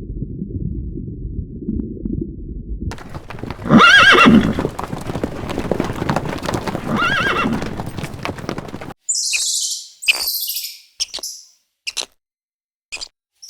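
A horse neighing twice, a few seconds apart; the first neigh is the loudest sound. Before it there is a low steady rumble, and after it a run of short, high-pitched chirps with gaps between them.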